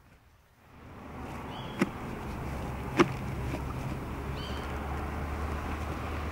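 Plastic side-release buckle on a kit pouch being unclipped: two sharp clicks about a second apart. Under them, a steady rushing noise with a low hum sets in about a second in.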